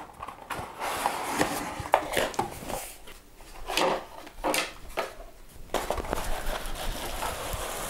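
Cardboard scraping and rustling as a smaller cardboard box is slid out of a larger shipping box and handled, in irregular bursts with a few light knocks.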